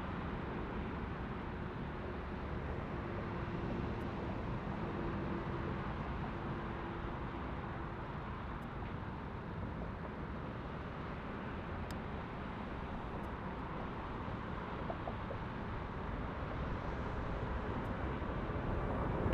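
Airbus A350-900 jetliner's Rolls-Royce Trent XWB engines at takeoff thrust during the takeoff roll and lift-off: a steady, distant rushing jet noise that grows louder near the end as the aircraft climbs away.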